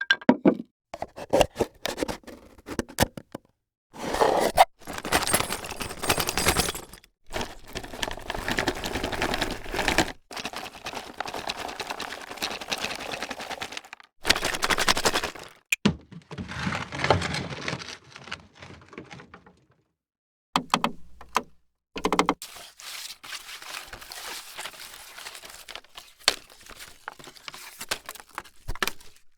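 A string of separate foley effects played one after another: clusters of sharp clicks and knocks alternating with longer scraping or rustling noises a few seconds each, with short silent gaps between them.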